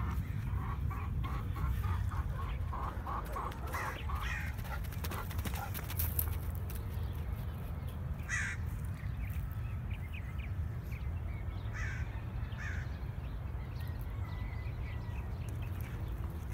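Birds calling: a quick run of short repeated calls for the first few seconds, then a few single calls later on, over a steady low rumble.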